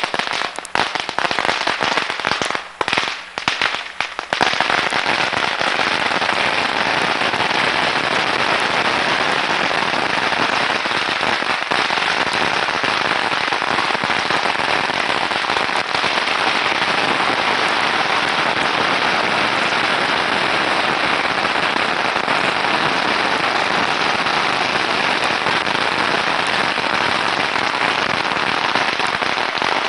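Firecrackers going off: a few separate sharp cracks, then from about four seconds in a long unbroken rapid crackle, like a string of firecrackers burning through.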